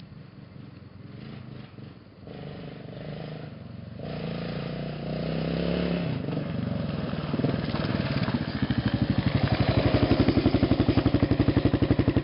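Yamaha XT enduro motorcycle riding up a gravel track towards the listener, its engine growing steadily louder. Near the end it passes close by with a fast pulsing exhaust beat.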